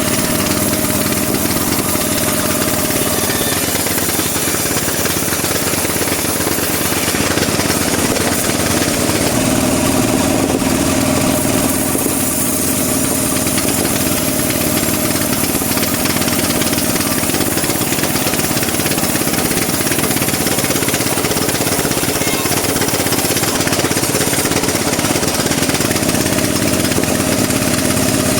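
Bandsaw mill running steadily, sawing teak wood: a loud, constant machine noise with a low steady hum.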